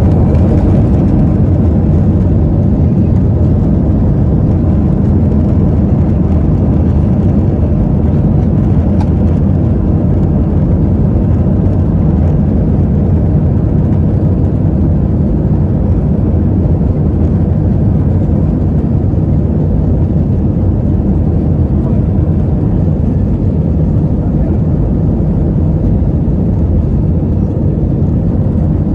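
Airbus A320's jet engines at takeoff thrust, heard from inside the cabin as a loud, steady low rumble during the takeoff roll down the runway.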